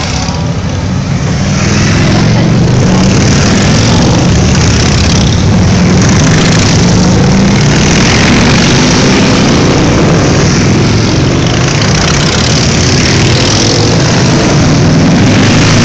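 Harley-Davidson motorcycles' V-twin engines running loudly at low speed as a procession of bikes rides past one after another, with gentle rises in pitch as riders open the throttle.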